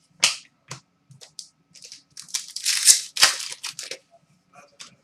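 Trading cards being handled and slid past one another, a run of short scratchy rustles and crinkles, busiest in the middle.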